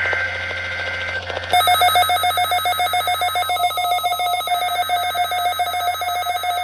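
NOAA Weather Radio SAME data burst, a two-tone digital screech, for about a second and a half. Then a Midland WR-120 weather radio's alert alarm breaks in with rapid, evenly pulsed beeping that keeps on over the data. Here the radio is treating the weekly test as an unrecognized message.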